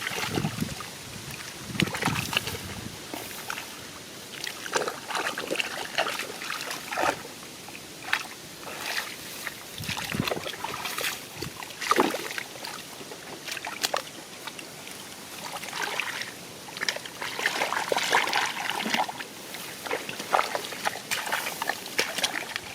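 Shallow rice-field water splashing and sloshing in irregular spurts as hands grope through it for fish.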